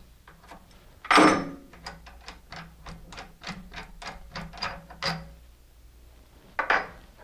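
Metal clicking and knocking as the crosswise securing bolt is worked out of a reloading press's toggle assembly: a sharp knock about a second in, then a run of light, even clicks about three a second, and another knock near the end.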